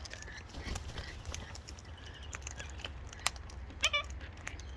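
Wild parrots feeding at a seed bucket: scattered sharp clicks and taps. About four seconds in there is one short, squeaky bird call.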